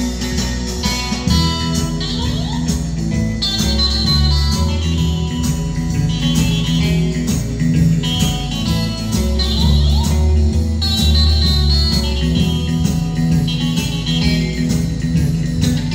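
Guitar music with a bass line, played back from a cassette on a 1981 Marantz SD 3510 two-head stereo cassette deck.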